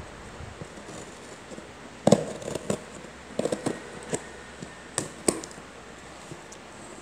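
A utility knife slitting the packing tape along the seam of a cardboard box: a string of short, sharp cutting and scratching sounds, with a few taps on the cardboard, bunched between about two and five and a half seconds in.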